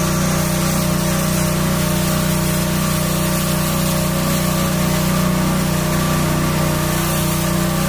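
High-pressure washer running steadily, its motor and pump humming under the constant hiss of the water jet spraying.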